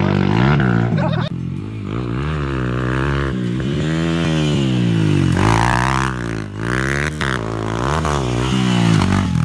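Motorcycle engine running under changing throttle as the bike rides down a rough grassy slope, its pitch rising and falling in waves about once a second.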